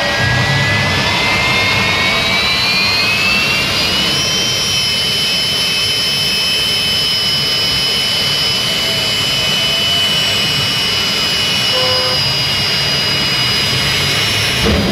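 Jet car's turbine engine running, its high whine rising over the first four seconds as it spools up, then holding a steady pitch over a loud rush of exhaust.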